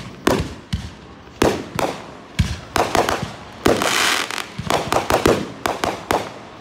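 Fireworks display: a quick run of sharp bangs, more than a dozen and some in close succession, with a spell of crackling near the middle.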